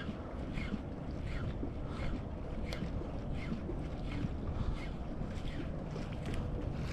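Wind buffeting the microphone over water and surf at the shoreline, with a faint short sound repeating about every two-thirds of a second.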